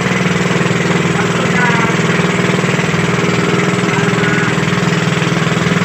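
A small boat's engine running steadily at an even speed, its drone and rapid firing pulses unchanging.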